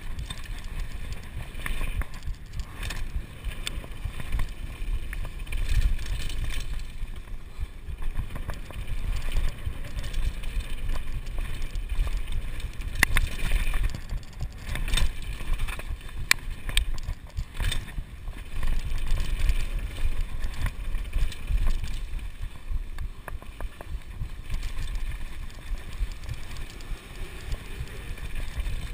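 Kona Supreme Operator downhill mountain bike riding fast over a dirt and gravel trail: a steady low rumble from the tyres and the ride, with frequent sharp clicks and rattles from the bike as it hits bumps.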